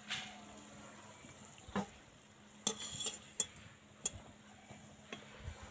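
Biscuits frying in hot oil with a faint sizzle, and a metal wire-mesh skimmer knocking and scraping against the pan several times as they are scooped out, in the middle of the stretch.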